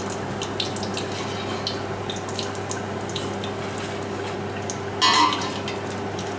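Castagnole deep-frying in pork lard in a steel pot: a steady sizzle with scattered small crackles. About five seconds in, a short clatter as the skimmer lifts a batch of fritters from the pot and tips it into a paper-lined bowl.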